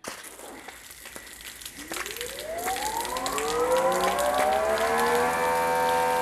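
Greenworks 2300 PSI electric pressure washer with the trigger pulled: water hisses from the nozzle while the motor whine starts late and rises in pitch for a few seconds before settling into a steady high-pitched run. The slow ramp-up is the total stop system restarting the pump, a big delay before full pressure.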